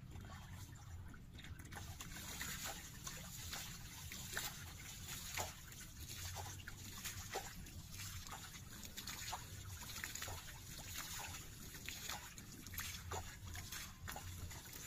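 Water splashing and trickling in many small, irregular drips and plops, over a steady low rumble.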